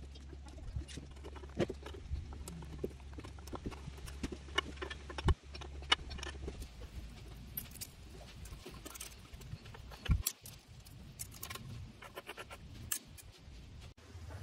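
Scattered small metal clicks and clinks of hand tools and nuts on a 1963 Lambretta engine's aluminium crankcase as it is taken apart, over a low steady hum that stops about six and a half seconds in.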